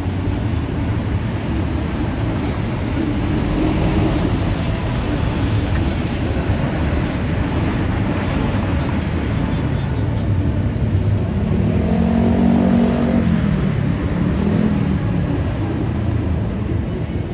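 Busy city street ambience: steady road traffic noise with passers-by talking.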